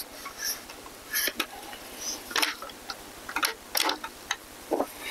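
Irregular light clicks, taps and rustles of a camera being handled and set in place.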